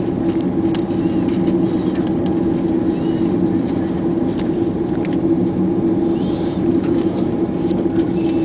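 Cabin noise inside an Airbus A330-200, heard from a window seat: a steady rumble with an even engine hum that neither rises nor falls.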